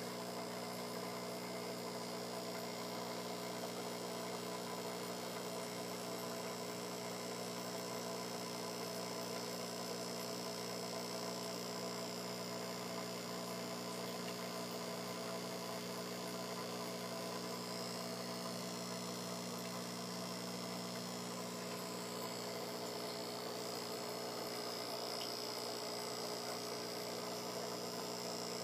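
Steady mains-type electrical hum, several tones stacked together, with a fainter high whine above it that wavers during the second half.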